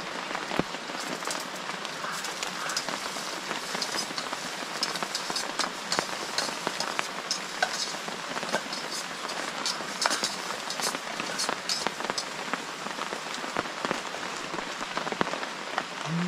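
Rain pouring down: a steady hiss, with many separate drops tapping on a surface.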